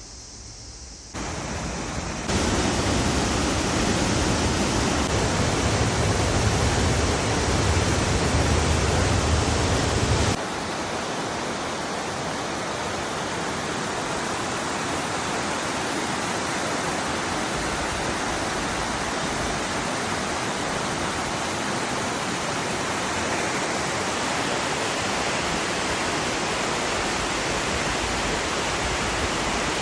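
Waterfall rushing, a steady roar of falling water. For the first ten seconds it is loud with a deep rumble, then it cuts suddenly to a lighter, even rush of water.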